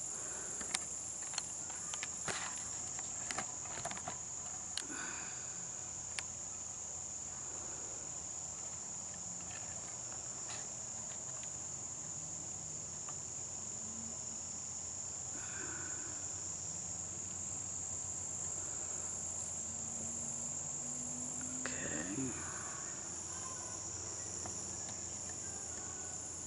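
Steady, high-pitched chorus of insects such as crickets, unbroken throughout, with a few sharp clicks in the first few seconds and a faint low hum that rises briefly near the end.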